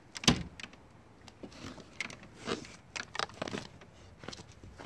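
A sharp click near the start, then a run of short crunches and scuffs as a foot presses into fresh snow on a wooden step.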